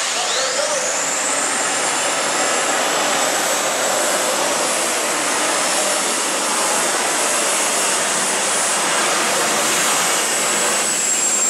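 Unlimited modified pulling tractor's turbine engine spooling up with a high whine that rises steeply in the first second. It then runs at a loud, steady high-pitched whine over a dense rush of exhaust noise.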